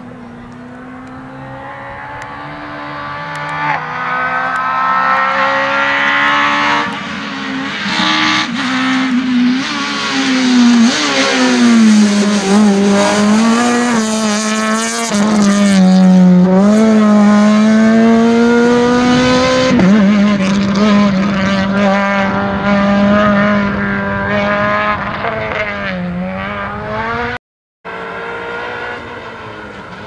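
Citroën C2 rally car's engine driven hard on a gravel stage, revs climbing and dropping back at several gear changes, louder as it nears. Near the end the sound cuts out for a moment and another rally car's engine is heard.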